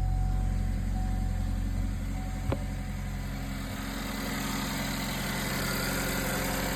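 2013 Chevy Equinox engine idling just after being started, with a steady rhythmic exhaust note from a massive exhaust leak. A single sharp click sounds about two and a half seconds in, and the low engine note eases slightly a second later.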